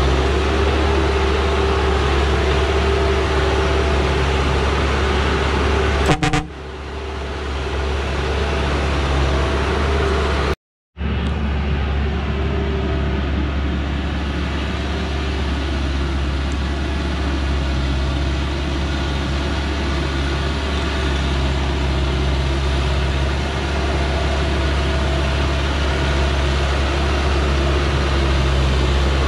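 Diesel engine of a loaded Dongfeng logging truck running steadily at low speed as it crawls along a dirt mountain track. About six seconds in a sharp click is followed by a brief dip, and a little later the sound cuts out completely for half a second.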